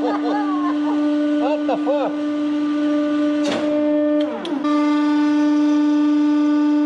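Hydraulic press pump running with a loud, steady hum while the ram retracts. A voice makes short wavering sounds over it in the first two seconds, and a falling glide comes about four seconds in.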